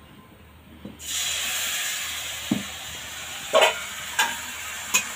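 Thin rice-and-urad-dal batter sizzling as it meets a hot, oiled metal pan: a hiss that starts suddenly about a second in and slowly fades. A few short knocks come in the second half.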